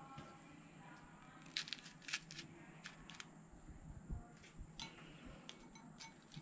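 Faint, scattered sharp clicks and crackles of live prawns flicking on a bed of coarse salt in a foil-lined bowl, about a dozen clicks starting a second and a half in.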